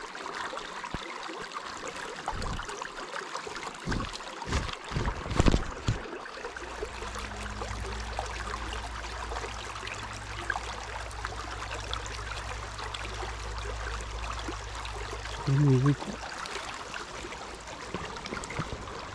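Small shallow stream running over riffles: a steady rush of water. A few dull knocks come in the first six seconds, a low steady rumble joins after that, and a short louder pitched sound breaks in about three-quarters of the way through.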